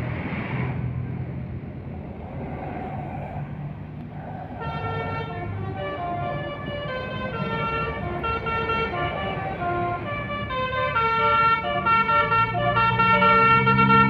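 Bus engine and road noise, then from about five seconds in a Basuri musical bus horn playing a melody of short, quickly changing notes. It grows louder and fuller from about eleven seconds in, with several notes sounding at once.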